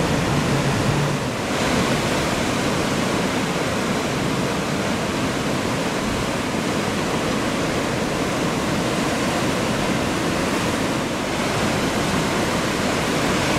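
Steady roar of ocean surf, waves breaking and washing, with a low hum that stops about a second in.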